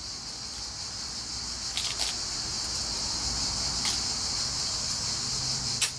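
A steady, high-pitched chorus of insects chirring, with a few sharp snaps of crisp romaine lettuce ribs being broken by hand, the loudest near the end.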